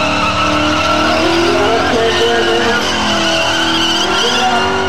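Holden VB Commodore V8 held at high revs in a burnout, rear tyres spinning and squealing on the track. The revs waver and rise a little about a second and a half in.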